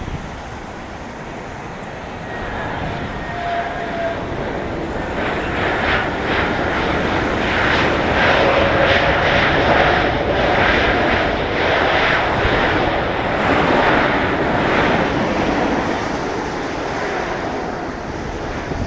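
Airbus A321neo's Pratt & Whitney geared turbofan engines passing on landing: a jet hum that swells, pulses at its loudest for several seconds, then fades away. Wind rumbles on the microphone throughout.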